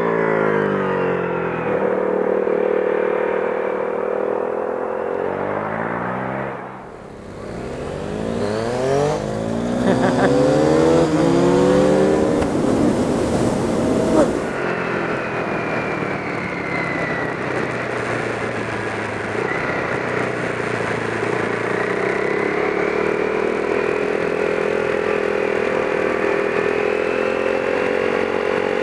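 KTM Duke 390's single-cylinder engine through an aftermarket Pipewerx full-system carbon exhaust. The note rises and falls with the revs through the first half as the bike approaches and rides past. After about fourteen seconds it settles into a steadier running note with slow pitch changes, heard from a camera mounted on the bike.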